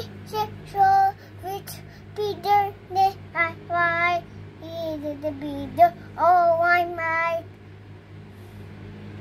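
A young girl singing in short phrases with long held notes, stopping about seven seconds in. A low steady hum runs underneath.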